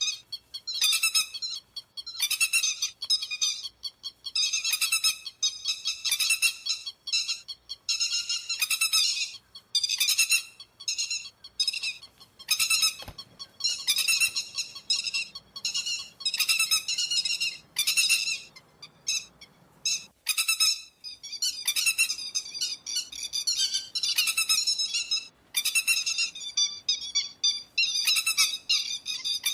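Pacific golden plover (te te vàng) calls: high, clear whistled notes in quick clusters, repeating about once a second without a break, played as a lure recording for night net-trapping.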